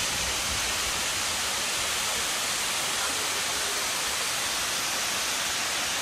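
Steady rushing hiss of a tall waterfall, the Cachoeira do Buracão, plunging into its canyon pool.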